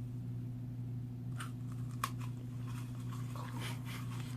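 Crunching bites of a dry, crisp meringue: a few sharp crackles, then a denser run of crunches toward the end, over a steady low hum.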